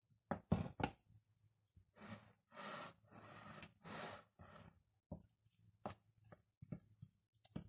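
Metal fork stirring wet flour and kefir in a glass bowl: sharp clinks against the glass in the first second, then longer scraping, hissy strokes through the sticky dough, and more scattered clicks near the end.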